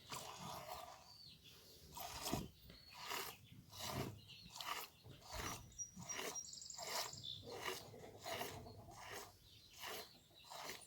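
Goat milk squirting into a milk pail during hand-milking: a faint, regular hiss of streams, a little more than one a second, as the udder is stripped out.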